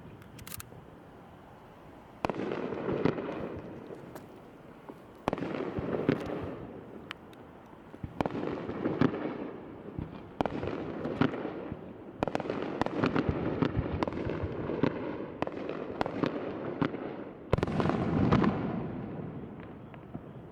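Aerial fireworks shells bursting one after another, about every two to three seconds: each boom is followed by a spell of crackling that dies away.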